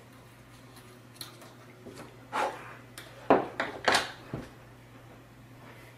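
Short scrapes and clicks of a small hand file on a plastic servo horn, shaving it down because it is slightly too long, with sharper knocks around the middle as the file and acrylic parts are handled on a tabletop.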